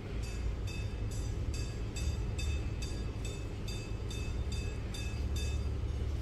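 Garmin Instinct 2X Solar watch giving a short electronic beep for each press of its DOWN button while scrolling through the Settings menu: about thirteen even beeps, roughly two a second. A steady low rumble runs underneath.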